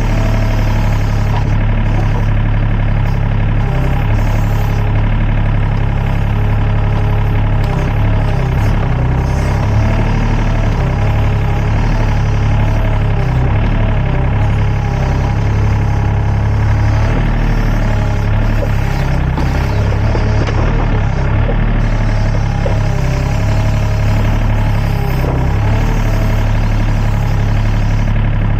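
Sany SY35 mini excavator's diesel engine running steadily under load, a deep hum, with a whine from the hydraulics that wavers up and down as the arm and bucket dig.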